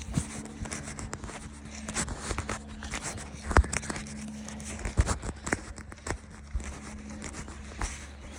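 Irregular footsteps and rustling with scattered sharp knocks, over a steady low hum.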